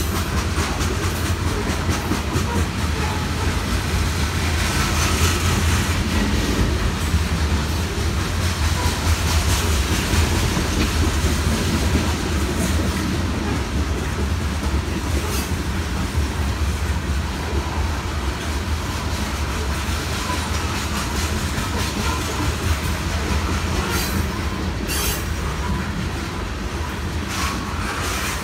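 Freight train of covered hopper cars rolling past: a steady low rumble of steel wheels on rail with running clickety-clack as they cross the rail joints, and a few sharper high clicks along the way.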